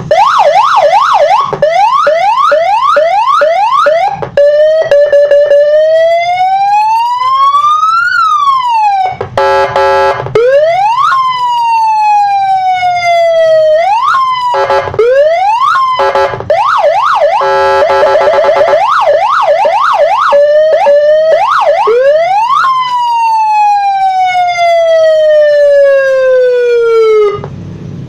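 Electronic siren module driving a 15-watt horn speaker, switched through several of its five tones as the keypad buttons are pressed. It gives fast up-and-down yelps, slow wails that rise and then fall, and short steady horn-like blasts, changing pattern every few seconds.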